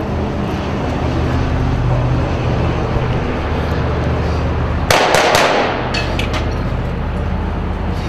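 A vehicle engine running steadily, with a short rapid burst of gunfire, three or four cracks, about five seconds in and a few fainter shots just after.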